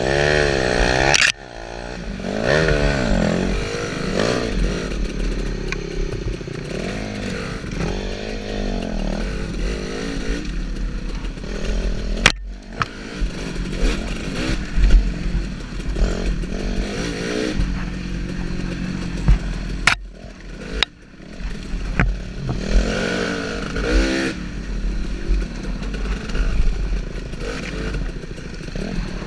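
Dirt bike engine heard from the rider's own bike, revving up and down repeatedly as the throttle is worked over rough trail, with a few sudden brief drops off the throttle.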